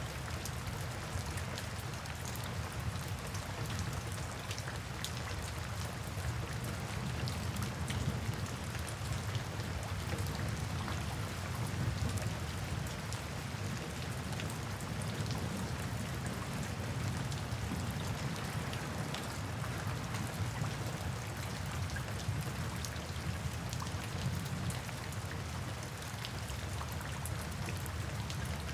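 Steady rain falling, with many individual drops ticking through the constant patter and a low rumble underneath.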